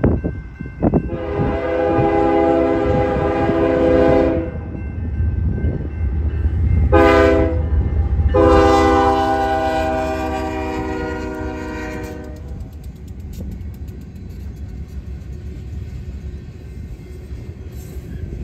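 Freight diesel locomotive's multi-chime air horn sounding three blasts, long, short, long, over the low rumble of the passing train. After the horn stops, the freight cars keep rolling by with a steady rumble and light clatter of wheels on the rails.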